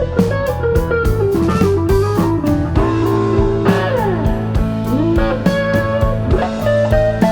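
Background music: a blues-style electric guitar playing a sliding, bending melody over bass and a steady drum beat.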